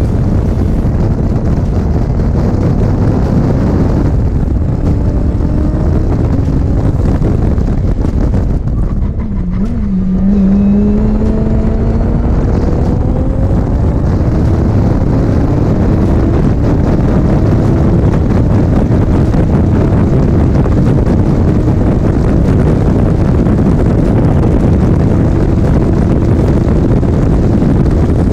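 Twin-turbo Audi R8 V10 time-attack car lapping at speed, heard from a camera on its flank: heavy wind rush on the microphone over the engine. The engine note drops about nine seconds in, then climbs steadily as the car accelerates again.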